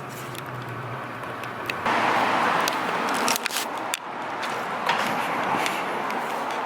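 Steady rushing outdoor noise, such as street and traffic ambience. It becomes louder about two seconds in, with a few faint clicks.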